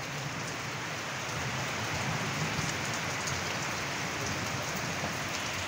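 Steady rain falling, an even hiss of rain on surfaces without a break.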